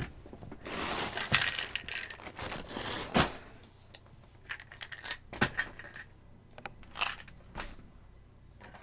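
Papers and desk clutter rustling and crinkling as they are rummaged through and moved about, with sharp knocks and clatters of objects being put down. A dense stretch of rustling fills the first three seconds, then come scattered single knocks.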